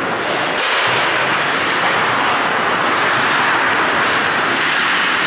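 Steady rushing noise of ice hockey play on an indoor rink, with a brief scraping hiss of skates on the ice about a second in.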